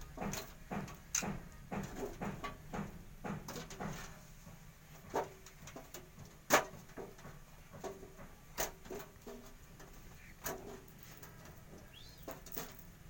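Clicks, taps and light knocks of plastic connectors and cables being handled on a desktop computer's system unit during disassembly. They come thick and fast for the first few seconds, then sparser, with one sharp click about six and a half seconds in.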